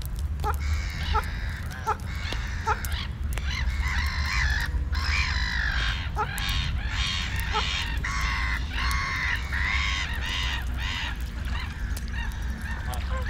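Domestic white geese honking: a run of short, evenly spaced calls in the first few seconds, then several birds calling at once in loud, overlapping nasal honks through the middle, tailing off near the end, over a steady low rumble.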